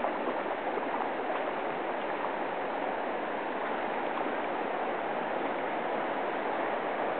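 Steady rush of river water flowing around a kayak, an even hiss with a few faint splashes.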